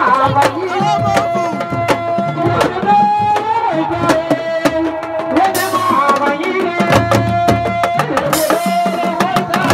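Music led by fast hand drumming, with a voice or instrument holding long notes and gliding between them over the drum strokes. Two short bursts of hiss come in, one a little past the middle and one near the end.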